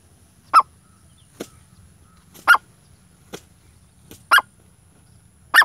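Grey francolin (desi teetar) calling: four short, loud call notes about two seconds apart, with fainter ticks between them.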